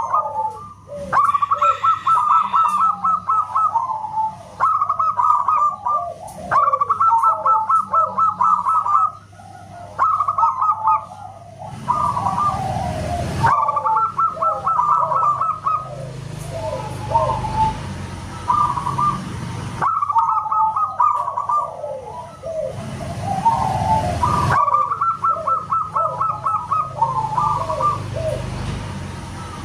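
Zebra doves (perkutut) calling over one another: repeated runs of rapid stuttering notes with lower, rolling coos between them. A rushing noise rises under the calls twice.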